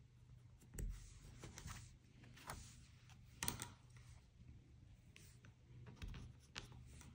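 Hands handling fabric and pins: soft rustling with a few small clicks and taps, over a faint steady low hum.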